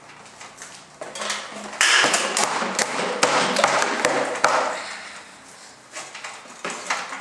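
Shammy cloths rubbed and scrubbed across an ironing board to wipe up a spilled drink, with small knocks and taps among the rubbing. The scrubbing is loudest from about two to four and a half seconds in, then dies down.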